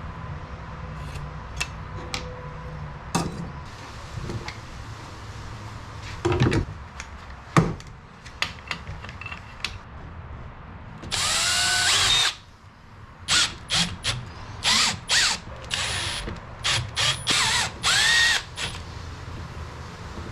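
Handheld power drill run in short trigger bursts: one longer run of about a second, then about seven short bursts, the motor winding up and down each time. A few knocks and clicks of handling parts and tools come before it.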